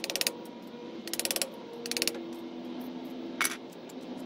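Hammer tapping a screwdriver against the steel front axle knuckle of a Kubota B7500 tractor, driving off the old seal sleeve: short runs of quick light metal taps about once a second, then a single sharper strike near the end.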